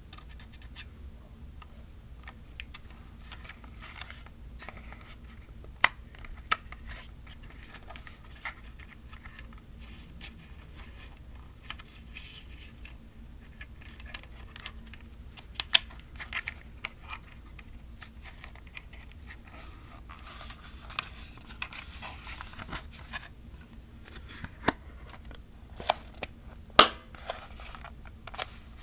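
Fingers handling and rubbing a plastic film camera, with soft scratching and about a dozen scattered sharp plastic clicks as it is touched and shifted.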